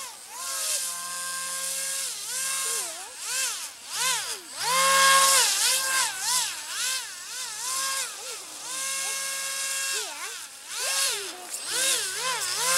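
Electric motor and propeller of an AquaCraft Cajun Commander RC airboat whining. The pitch swoops up and down sharply again and again as the throttle is opened and closed, with a few steadier held stretches in between.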